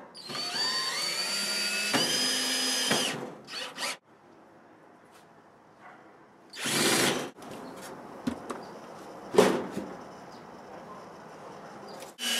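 Cordless drill driving screws into wooden wall framing. Its whine rises as the motor spins up, then runs steady for about three seconds. A couple of brief blips and another short run follow, and a sharp knock comes about nine and a half seconds in.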